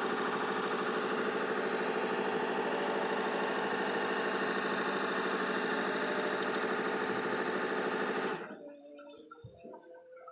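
Knitwear linking machine with a servo motor running steadily at high speed, about 800 rpm, with a fast, even mechanical chatter; it stops abruptly about eight seconds in, leaving only a few faint ticks.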